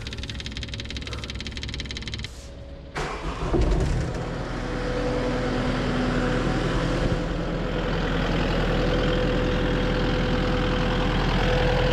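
Skid steer's electric fuel pump ticking rapidly with the key turned on, priming the freshly changed fuel filter. About three seconds in, the engine cranks and catches, then runs steadily at idle.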